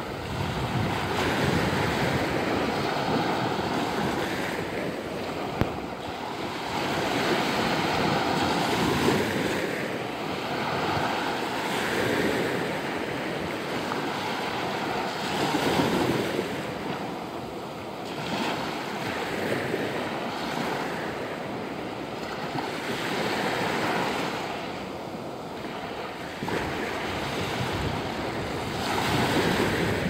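Small sea waves breaking and washing up a sandy shore, the surf swelling and fading every few seconds.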